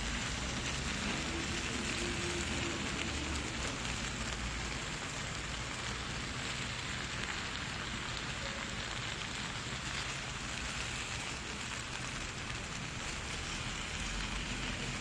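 Steady sizzling of gochujang-marinated pork and cabbage frying on a hot griddle pan while being stirred with wooden chopsticks.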